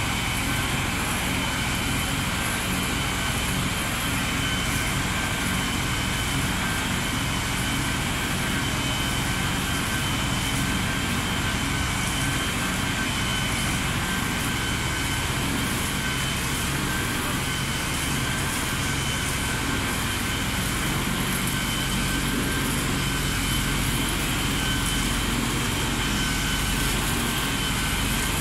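Fire engine running steadily at high revs to drive its water pump, with a steady high whine over the rush of the water jets.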